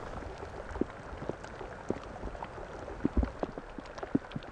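Light rain: scattered raindrops plinking irregularly on a pond's surface, with a soft low thump about three seconds in.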